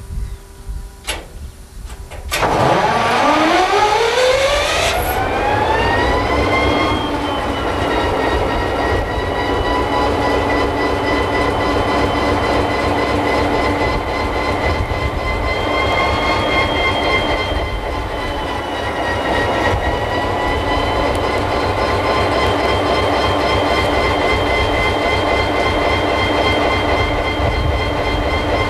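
Diesel freight locomotives running close by in a slow-moving train, with a steady low rumble. About two seconds in the engine sound comes in loudly and its note climbs in pitch for a few seconds before settling into a steady drone.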